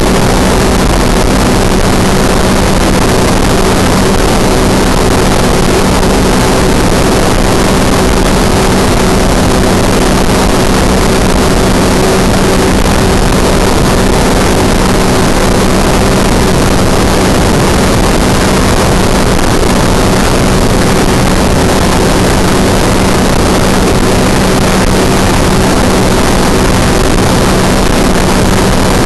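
Ultralight aircraft engine running steadily in cruising flight, a constant drone under heavy wind rush over the microphone. There is no change in pitch or level.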